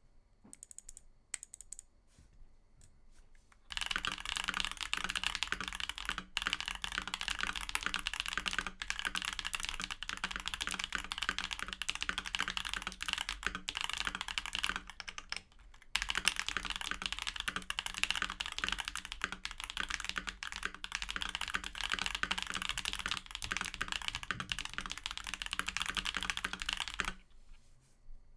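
Typing on a Keychron V1 mechanical keyboard with factory-lubed Akko V3 Cream Blue Pro tactile switches, case foam and a PE-foam mod. A few single keystrokes come first, then fast continuous typing starts about four seconds in, pauses briefly near the middle, and stops near the end.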